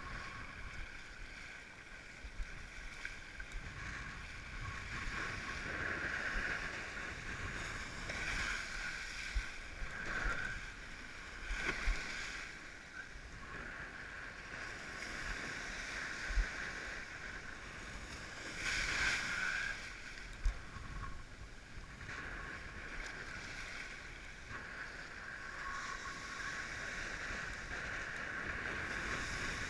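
Water rushing and splashing along a windsurf board riding through shore-break surf, picked up by a camera mounted on the board, with wind on the microphone. The rush swells several times, loudest about two-thirds of the way through, and a few low knocks of water hitting the board come through.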